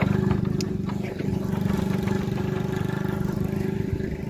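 Engine running steadily with an even low drone and rapid firing pulses.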